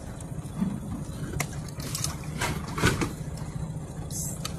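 A boat engine idling steadily, with rubbing and knocking from the phone being handled against clothing; the rubbing is loudest about three seconds in.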